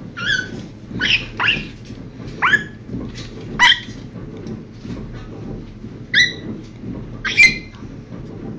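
African grey parrot giving a run of short, sharp calls, about seven in all, several of them falling quickly in pitch.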